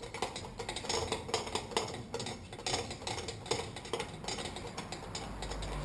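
Irregular metallic clicks and clinks of fork parts and tools being handled as a fork damper part is threaded back up.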